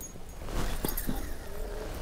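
Low wind rumble on the microphone, with a few faint clicks.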